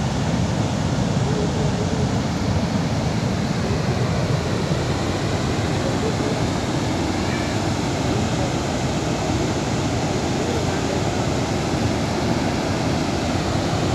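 Steady rush of a large volume of water pouring from a dam's open spillway gates and churning in the river below.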